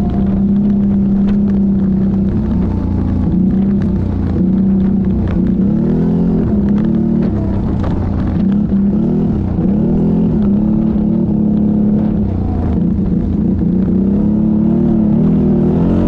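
ATV engine running steadily, its pitch rising and falling several times as the throttle is worked.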